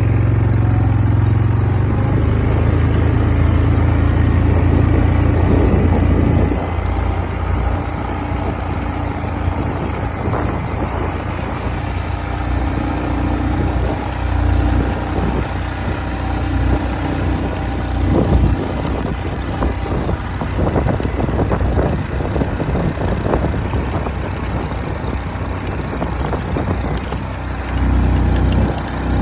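Quad bike (ATV) engine running while the bike drives across a grass paddock, a steady low drone. It drops in level about six seconds in, becomes more uneven, and rises again near the end.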